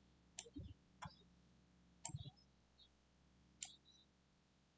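Faint computer mouse clicks: four or so scattered single clicks about a second apart.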